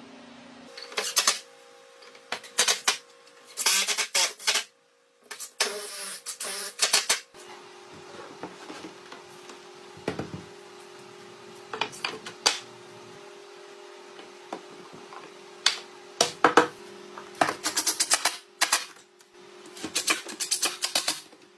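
Wooden desk parts being handled and knocked into place, a string of sharp knocks and clattering clicks over a faint steady hum, with a burst of rapid clicking near the end as a cordless drill/driver drives screws into the wood.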